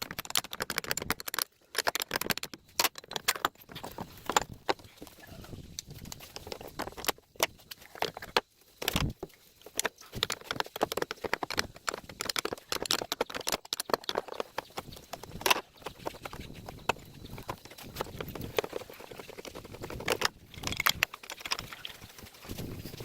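Irregular metallic clinks, knocks and scrapes of a replacement alternator and hand tools being handled and fitted back into a car engine bay.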